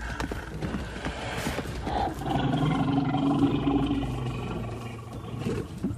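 Big cat growling: one long, low growl starting about two seconds in and lasting about three seconds, the voice of a saber-toothed cat.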